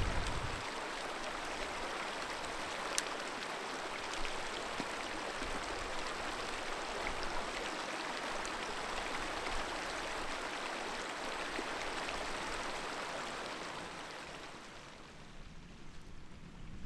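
Steady rushing of running water, fading away near the end.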